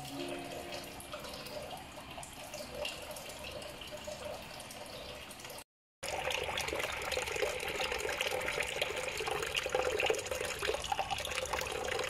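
Water pouring from a solar-pumped bamboo fountain spout, splashing and trickling steadily into the water below. There is a short gap of silence a little before halfway through, after which the splashing is louder.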